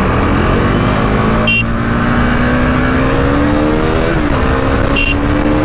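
Motorcycle engine pulling in gear, its note rising slowly and then dropping with a gear change about four seconds in, over a steady low rush of wind and road noise. Two short high beeps, about a second and a half in and near the end.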